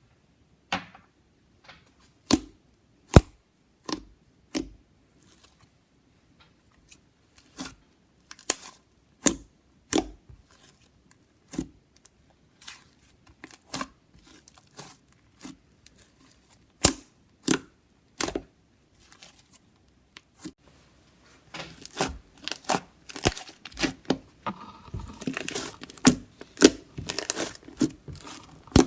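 Soft clay slime (glue slime with clay kneaded in) being squeezed, poked and stretched by hand, giving off separate sticky clicks and pops that turn into denser crackling and squelching about two-thirds of the way through.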